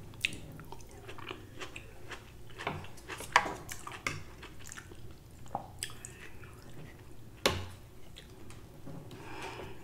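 Close-up chewing of tomato, red onion and cucumber salad, with wet mouth clicks and a few sharp ticks of a fork against the foil pan, the loudest near the end.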